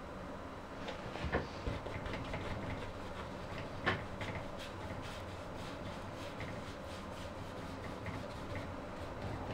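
Faint dabbing and scrubbing of a small paintbrush on stretched canvas, many soft ticks over a steady room hum, with two sharper knocks, one about a second in and one near four seconds.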